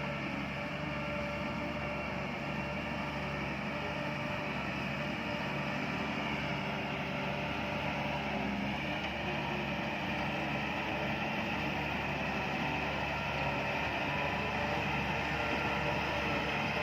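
Heavy diesel engine of a bulldozer running steadily under working load, growing slightly louder toward the end.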